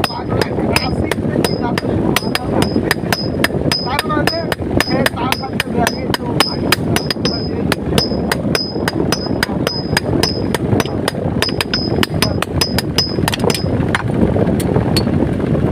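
Blacksmith's hammer striking hot metal on an anvil in a steady rhythm, about three blows a second, each with a short high ring. The hammering stops near the end.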